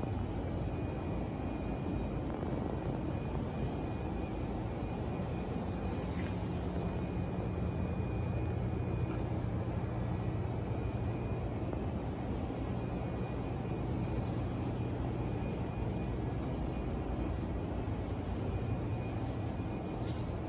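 Steady low mechanical drone that holds an even level, with a faint high whine above it.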